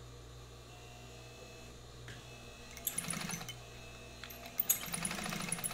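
Brother DB2-B755-150 industrial straight-stitch sewing machine stitching through fabric-backed vinyl in two short runs of rapid, even stitching, about three seconds in and again near the end. A steady low hum sounds underneath.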